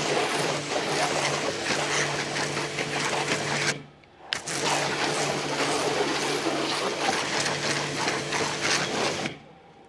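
Hotstarr electric high-pressure washer running, its pump motor humming under the hiss of the high-pressure water jet. The spray cuts out about four seconds in, restarts half a second later with a click, and stops just before the end, as the gun's trigger is released and pulled again.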